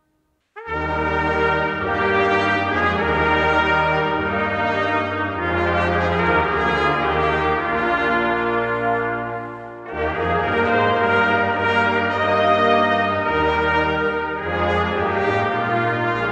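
Brass choir of trumpets, trombones and tuba playing sustained full chords, coming in about half a second in, with a short breath break near the middle before the next phrase.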